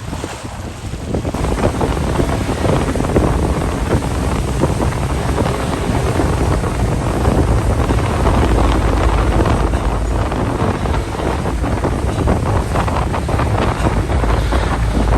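Wind buffeting the microphone aboard a river ferry: a steady low rumble that swells about a second in.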